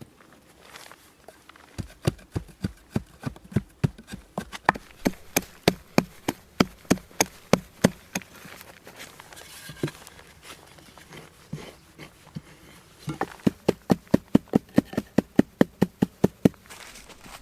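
A steady run of sharp knocks from a hand tool striking, about three a second, breaking off briefly, then a faster run of about four a second near the end.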